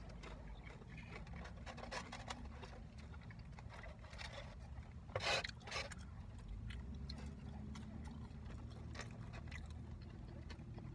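A person eating: chewing and lip smacking with scattered small clicks, over a low steady rumble, and a short louder noise about five seconds in.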